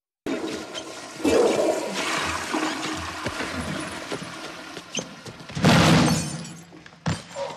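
Movie fight sound in a tiled bathroom: rushing water like a toilet flushing, with a loud surge early on. About five and a half seconds in comes the loudest crash, as a man is slammed against a mirror that cracks, and a sharp hit follows near the end.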